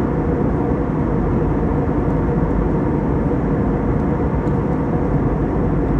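Jet airliner cabin noise in flight: a steady rush of engine and airflow noise with a steady hum running through it.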